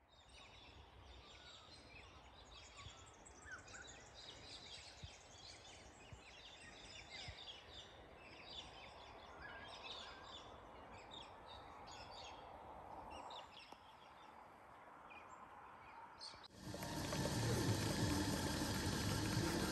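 Faint small birds chirping in short calls over quiet outdoor air. Near the end a coffee vending machine starts suddenly, running with a steady whir and hiss as it dispenses milky coffee into a paper cup.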